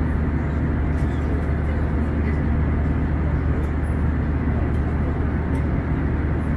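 Steady cabin noise inside an Airbus A320 airliner: an even rush of engines and airflow over a constant low hum.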